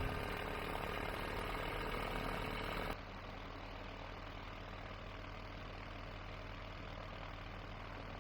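Rotax 912ULS flat-four aircraft engine idling steadily just after a cold start. About three seconds in, the sound abruptly turns quieter and duller.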